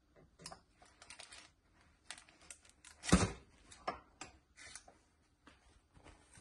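Metal springform cake pan being set down on a wire cooling rack: a run of light, irregular clicks and rattles, with one louder knock about three seconds in.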